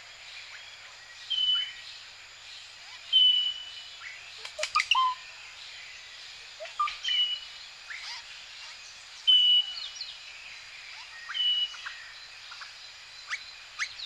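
Daytime tropical forest ambience: a bird repeats one short high whistle about every two seconds, while other birds give scattered chirps and calls over a steady insect hiss. A burst of sharp clicking chirps is the loudest moment, about halfway through.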